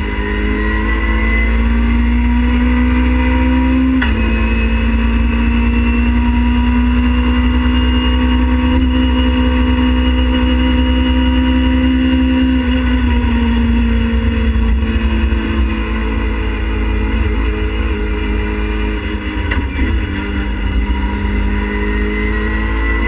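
Race car engine heard from inside the cockpit under hard acceleration, its pitch climbing and dropping sharply at an upshift about four seconds in, then pulling high in fourth gear. Around halfway through the revs fall away as the car slows and changes down, and they climb again near the end.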